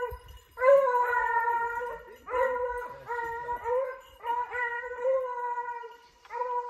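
Hunting hounds baying on a hare's trail: about five long, drawn-out howling notes in a row, the cry of dogs running a hare.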